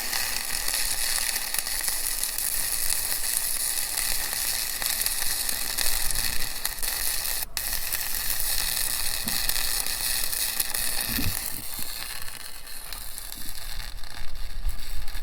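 Electric arc welder running a continuous crackling, sizzling arc as it welds a washer onto a twisted-off bolt stub, heating the broken bolt. The arc breaks off for an instant about seven and a half seconds in, then carries on and stops right at the end.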